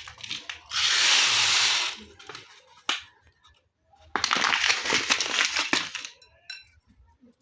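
Plastic bag rustling and crinkling in two bursts as food is handled and packed away, with a few small clicks between them.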